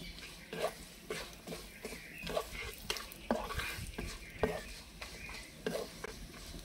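Wooden spatula scraping and stirring cashews, almonds, dried coconut and raisins around an iron kadhai in irregular strokes, a couple a second, over a light sizzle of the nuts roasting in ghee.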